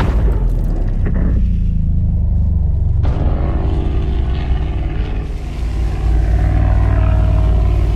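Engine running with a deep, steady rumble.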